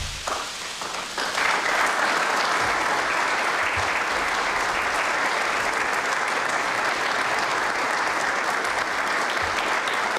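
A roomful of people applauding. The clapping builds up over the first second or so, then holds steady.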